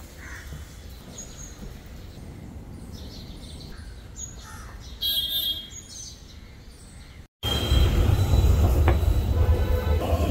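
Faint outdoor ambience with a few bird chirps. After a sudden cut, a loud, steady low rumble of a metro train in a station, with a falling motor whine near the end.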